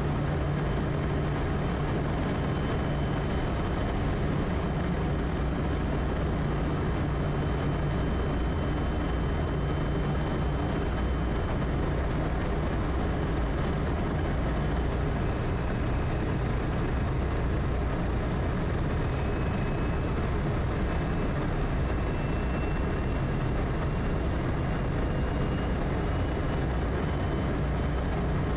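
Steady drone of a Quest Kodiak's turboprop engine and propeller in cruise flight, with a constant low hum under it.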